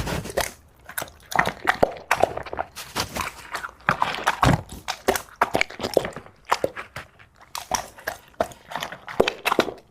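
Chewing and biting food: an irregular run of short crunches and clicks.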